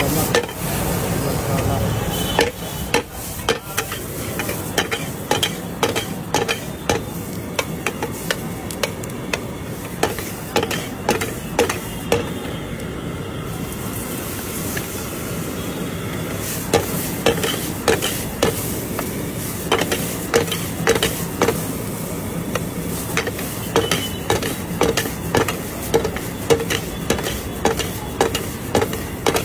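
Sliced onion, tomato and green chilli sizzling in a hot pan while a metal spatula stirs and tosses them, clanking against the pan. The clanks are irregular at first and settle into a steady beat of about two a second in the second half.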